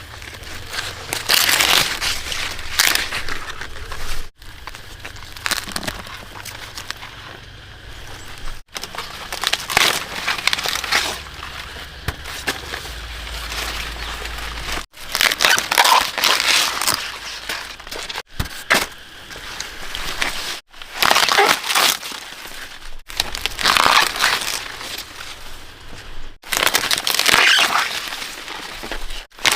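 Dry leaves rustling and crinkling in repeated bursts, typical of handling cornstalks and husks while picking corn.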